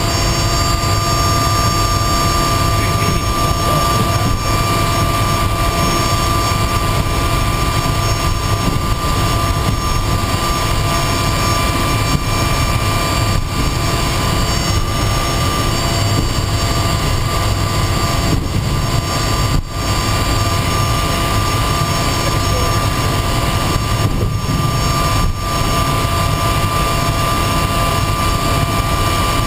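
De Havilland Turbo Otter's turboprop engine running at low power while the plane taxis, heard from inside the cockpit. A steady turbine whine sits over the low drone of the propeller.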